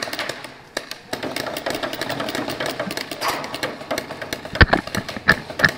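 Paintball markers firing in rapid strings of shots, giving a dense clatter of pops. Three louder, sharper pops come in the last second and a half.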